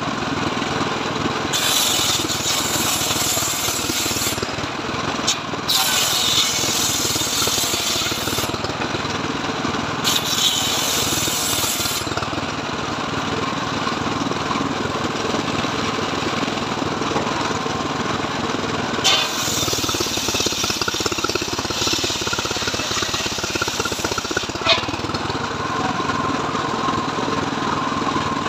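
Engine-driven homemade circular sawbench (srekel saw) running steadily, its blade ripping mahogany boards: three cuts in the first twelve seconds, then the blade spins free, and another cut from about nineteen to twenty-four seconds in.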